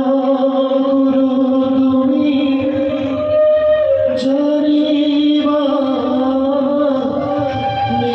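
Music with a voice singing long, drawn-out notes, each held for several seconds, with a short break and a sharp strike about four seconds in.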